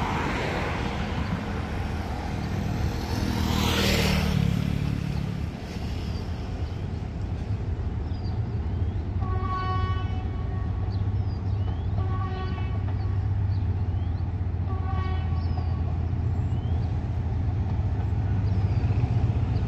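Diesel locomotive approaching, its engine a low drone that grows louder, and its horn giving three short toots about two and a half seconds apart in the middle. Before the horn, a passing vehicle rushes by.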